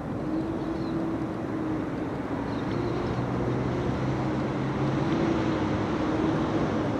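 Remote-control model fishing boat's motor running steadily, a hum that wavers slightly in pitch over a broad outdoor rumble.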